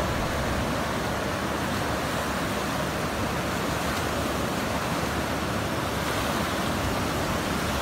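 The Ganges in flood, fast-moving muddy water rushing over the submerged riverbank in a steady, even rush.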